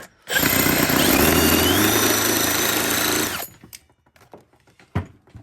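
Power drill running for about three seconds, a dense whir with a high whine that rises slightly about a second in, then stops; a sharp knock follows near the end.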